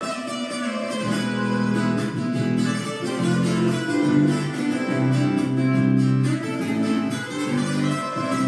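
Instrumental music with guitar, playing a melody over held chords.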